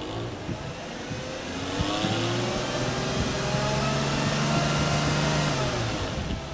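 Subaru Legacy B4 3.0R spec.B's 3.0-litre flat-six revved with the car standing, heard from behind at the twin exhaust tips. The engine speed climbs over about a second and a half, is held steady for about four seconds, then drops back near the end.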